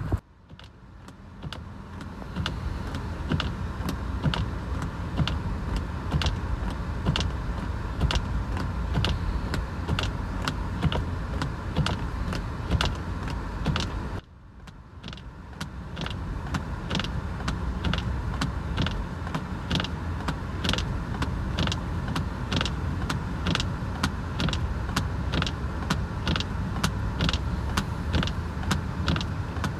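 A car on the move, with a steady low road and engine rumble and a sharp, regular ticking somewhat under two ticks a second. The sound cuts out abruptly twice, at the start and about halfway, and fades back in.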